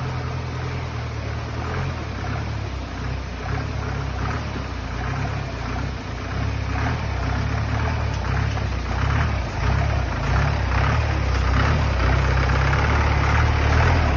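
A 4x4 vehicle's engine running with a low, steady hum, with faint clatters over it in the middle and slightly louder near the end.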